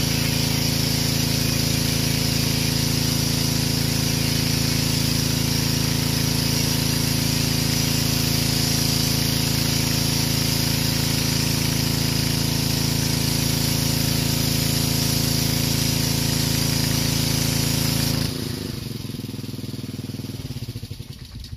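Pressure washer engine running steadily under the hiss of a foam blaster spraying soap. About 18 seconds in it cuts off sharply, and a quieter rumble slows and fades.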